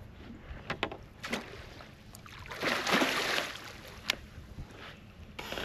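Water splashing for about a second near the middle, with a few sharp knocks before and after.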